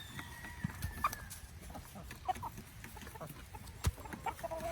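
Chickens clucking in short, scattered calls, with a few sharp clicks, the loudest about four seconds in.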